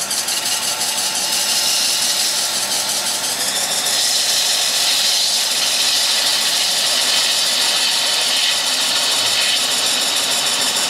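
A gouge shearing wood off a piece spinning on a wood lathe, a steady rushing cutting noise that grows brighter from about four seconds in, as the turned beads are cut away.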